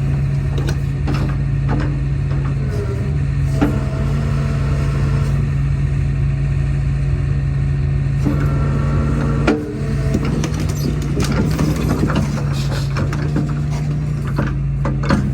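A Hitachi mini excavator's diesel engine runs steadily while it works a grapple attachment, with scattered knocks and clanks throughout.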